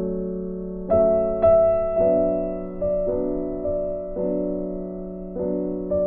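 Background piano music: slow, sustained notes and chords, a new one struck about every second.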